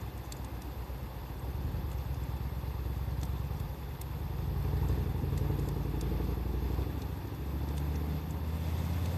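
A motor vehicle's engine running with a low rumble that swells about a second and a half in and holds. Sparse sharp crackles from a wood fire sound over it.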